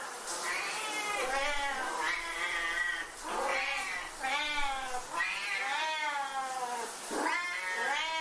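Siamese cats yowling, one long drawn-out meow after another, about one a second: the frantic calling these cats keep up while their owner is in the shower.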